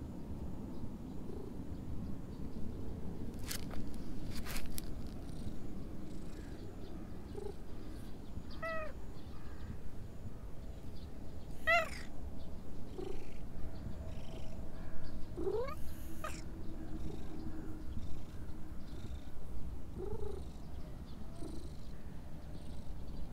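Cat purring steadily as it is stroked, a low continuous rumble. Two sharp clicks come a few seconds in, and a few short higher calls are heard now and then, the loudest a rising one past the middle.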